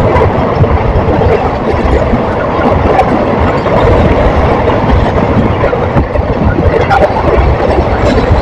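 Passenger express train running at speed, heard from beside the coaches: a loud, steady rumble of wheels on the track.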